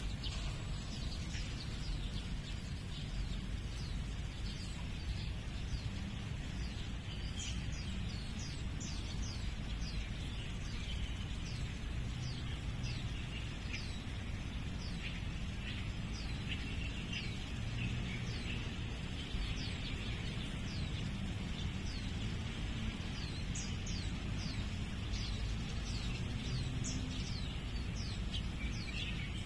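Small birds chirping, many short high chirps that each drop in pitch, coming thickest near the end, over a steady low rumble.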